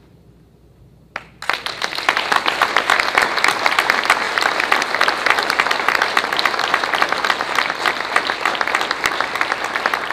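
Applause from many people clapping, starting suddenly about a second in after a quiet room and continuing steadily.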